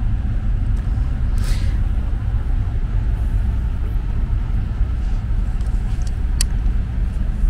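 Steady low rumble of a cruise ship under way, heard inside a cabin, with a couple of faint brief rustles.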